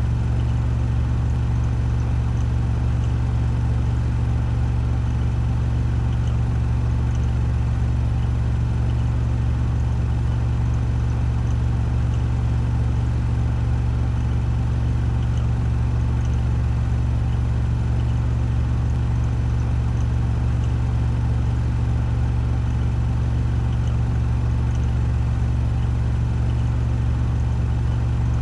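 Washing machine drum spinning at 1400 rpm on its spin cycle: a steady, even hum with a strong low drone.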